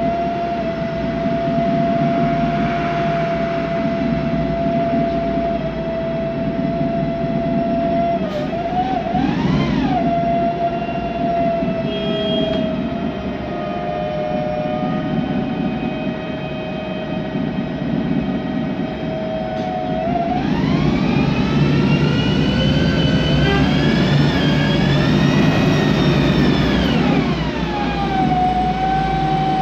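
Inside a 2008 MAN Lion's Classic CNG city bus: the Voith DIWA 864.3 automatic gearbox whines steadily over the rumble of the gas engine. The whine rises and falls briefly about eight seconds in, then climbs in pitch for several seconds from about twenty seconds in as the bus pulls away, and drops back near the end.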